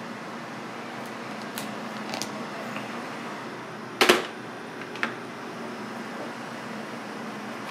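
A cooked mud crab being broken apart by hand, its shell giving a few sharp clicks and one much louder knock about four seconds in, over a steady low kitchen hum.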